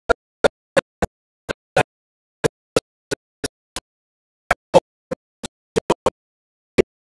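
Sound cutting in and out: about nineteen very short snippets, two to three a second at an uneven pace, each broken off into dead silence.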